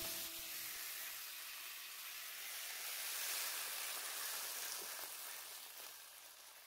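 Hot stir-fried beef chop steak sizzling as it is slid from the frying pan onto a plate: a steady hiss that swells a little midway and fades away near the end.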